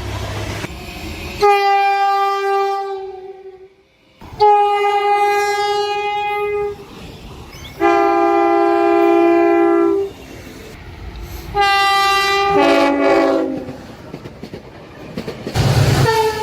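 Train air horns blowing in a run of separate blasts, five of them, each a chord of several notes. On one, about twelve seconds in, the chord drops in pitch as the train goes by (the Doppler effect). A low rumble from the passing train comes in under the last blast.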